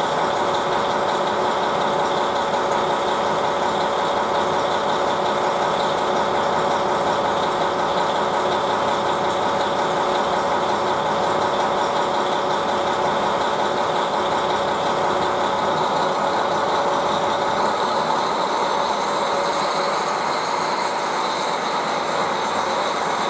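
KiHa 40 diesel railcar engine idling steadily with a constant hum and whine. In the last few seconds the sound shifts as the railcar begins to pull away from the platform.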